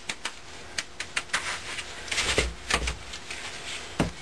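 A 20 mesh screen knocking and tapping against the rim of a plastic measuring pail as damp fireworks composition is worked through it: a scatter of irregular sharp clicks and taps. A louder knock comes about four seconds in as the screen is set down on the bench.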